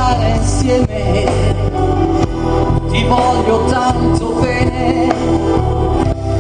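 Live band music with a singer's voice over it, steady bass and drums underneath.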